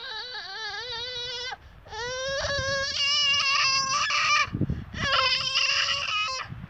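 Toddler crying in long, wavering wails: the end of one cry, then two more with short breaths between.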